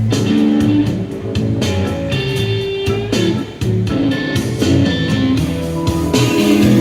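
Guitar-led music with a steady bass line, played back through KEF LSX wireless active speakers for a sound test.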